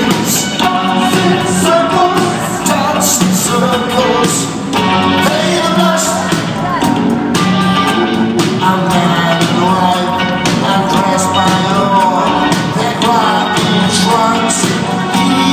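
Live rock band playing loud, with drums hitting throughout under wavering melodic lines and a steady low note.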